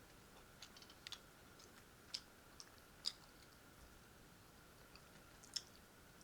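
Close-up chewing of food: scattered short wet mouth clicks and smacks, a second or so apart, over a faint steady hum.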